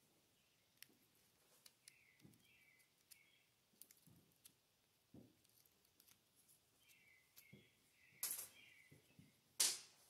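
Faint small clicks and scrapes of a thin metal pick working inside an old headlight connector to free the hooked terminals. Two louder short noises come about 8 and 9.5 seconds in.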